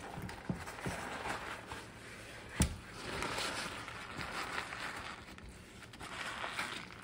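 Tallow-soaked butcher paper rustling and crinkling as it is peeled off a rested brisket, with one sharp knock about two and a half seconds in.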